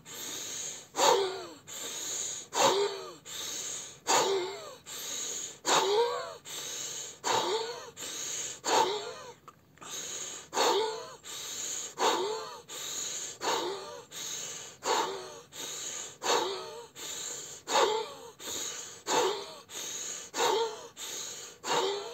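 A man's rapid, forceful breathing drill, the Kriya yoga breathing also used in the Wim Hof method. He takes about fifteen full breaths, one every second and a half, each drawn through nose and mouth together and blown quickly out through the mouth, with a brief lull a little before the middle.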